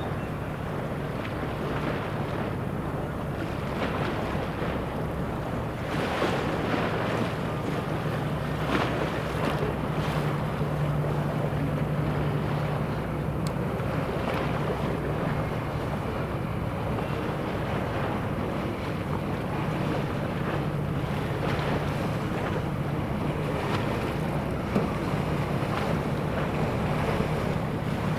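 A police patrol boat's engine running with a steady low drone, with water lapping and wind buffeting the microphone.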